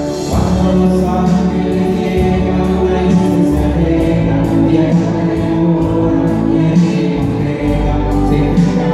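A small choir of young men and women singing a hymn together, with low sustained bass notes underneath, without a break.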